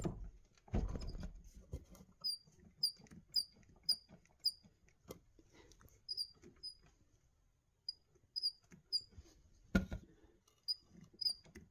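Faint, short, high squeaks about twice a second, in several runs with pauses, from the home-built Stirling engine's flywheel and bearing as the wobbling flywheel is turned by hand. A few dull knocks come in between, one about a second in and one near ten seconds.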